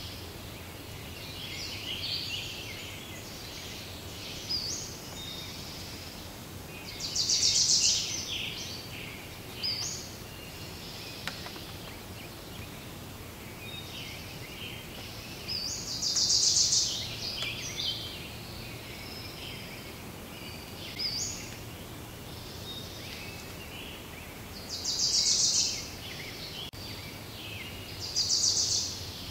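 Woodland birdsong: scattered chirps throughout, with a loud rapid trill of about a second that comes four times.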